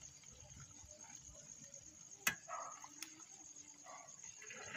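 Faint bubbling of sugar syrup boiling in a large cooking pot, with two sharp clicks about two and three seconds in.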